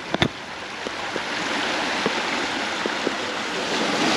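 Sea surf washing up the beach, a steady rush of water that swells about a second in and holds. A small double knock comes near the start, with a few faint ticks after it.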